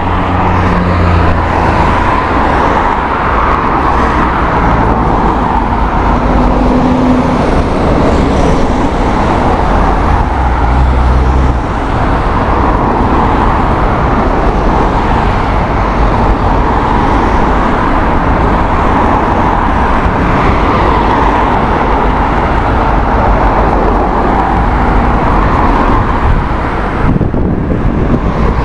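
Steady road traffic: cars and vans driving through a signalled junction and idling, with a continuous low engine rumble.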